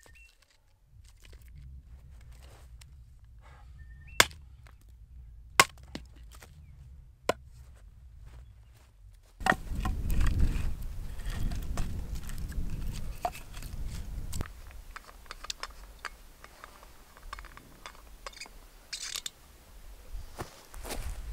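Hatchet blade splitting kindling on a wooden chopping block: three sharp chops a second or two apart. About halfway through, a louder low rumble of wind on the microphone sets in, with light knocks of split wood being laid in a fire pit.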